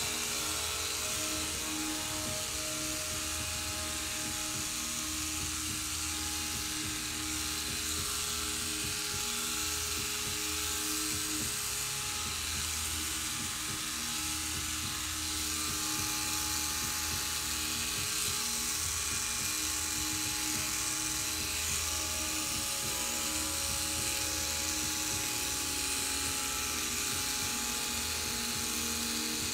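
Electric hair clippers buzzing steadily while shaving a cat's fur.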